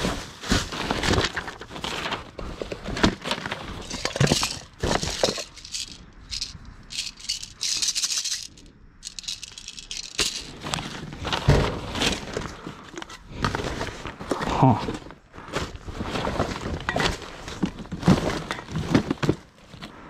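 Rummaging through junk in a dumpster: an irregular run of clattering knocks, rattles and rustles as items are shifted and handled.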